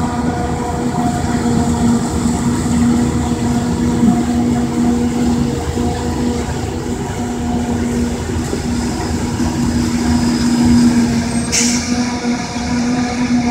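Claas Jaguar 870 self-propelled forage harvester chopping standing maize, engine and cutterhead running under load with a steady drone and a held whine, with a John Deere tractor and silage trailer running alongside.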